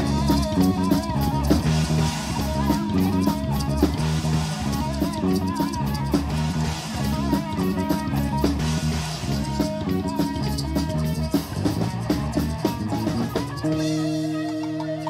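Live rock band of electric guitars, bass guitar and drum kit playing an instrumental passage with no vocals. Near the end the drums and bass drop out, leaving a held chord ringing.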